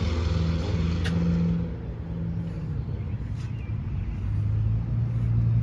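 Low, steady engine hum of a road vehicle running close by, its pitch dropping about four seconds in, with a couple of faint clicks over it.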